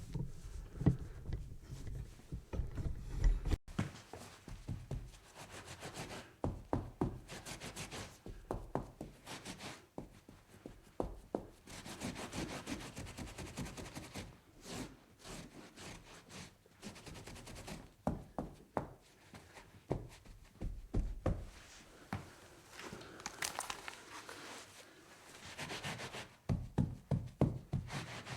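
Wiping and scrubbing on a table top: stretches of rubbing broken by frequent light knocks and taps.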